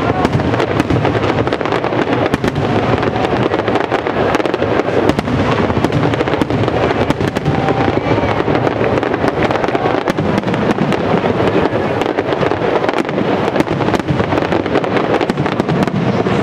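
Professional aerial fireworks going off in a sustained barrage: many sharp pops and crackles close together over a continuous rumble of shell bursts, with no letup.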